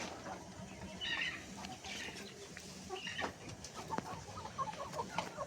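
Chickens clucking, with scattered short calls and a quicker run of clucks in the second half.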